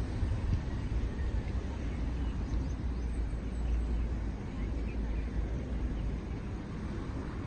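Outdoor ambience: a steady low rumble with faint distant voices and a few faint high chirps.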